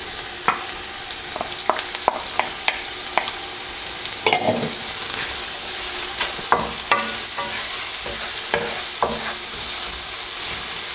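Chopped onion and garlic sizzling in hot olive oil in a non-stick frying pan, stirred with a wooden spoon. The spoon adds frequent short scrapes and light knocks against the pan over a steady hiss.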